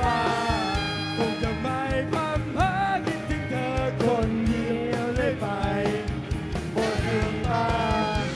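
Live rock band: a male singer singing into a microphone over electric guitar and a steady beat.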